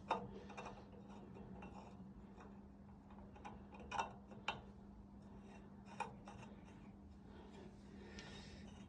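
Faint scraping and a few light metallic clicks and taps as a car's front strut parts are pushed and worked together, the fit tightening partway in. A steady low hum runs underneath.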